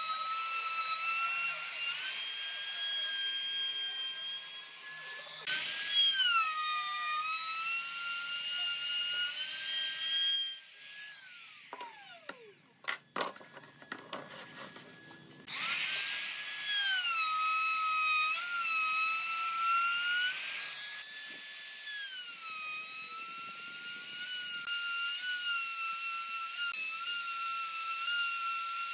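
Makita trim router running with a high-pitched whine while cutting grooves into a pine board, its pitch sagging and recovering as the bit takes load. About ten seconds in it is switched off and spins down with a falling whine, followed by a few seconds of quiet with a few light clicks and knocks. It starts up again about five seconds later and goes on cutting.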